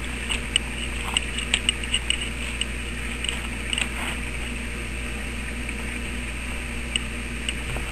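Scattered light clicks and taps from a multitool and its repaired sheath being handled, over a steady low hum. The clicks are busiest in the first few seconds and thin out after.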